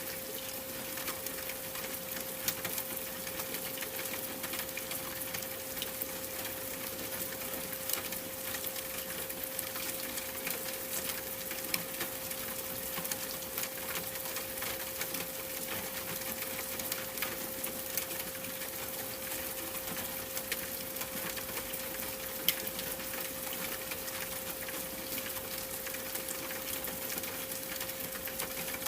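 A steady 528 Hz pure tone held throughout, over an even hiss of rain with scattered light ticks.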